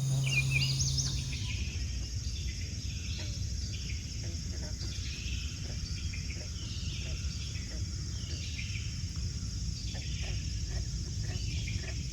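Outdoor night-time-style animal chorus: many short chirping calls over a steady high-pitched trill, with a low rumble underneath. A low steady hum stops about a second in.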